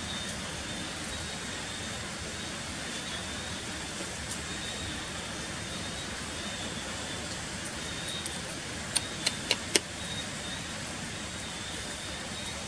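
Steady hiss of falling rain, with four sharp clicks in quick succession about nine seconds in. A faint steady high-pitched tone runs underneath.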